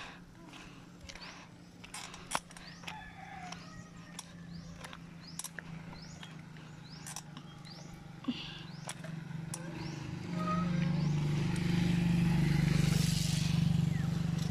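A motorcycle approaches and passes, its engine growing loud from about ten seconds in. Before that there are short, high, repeated chirps and sharp clicks.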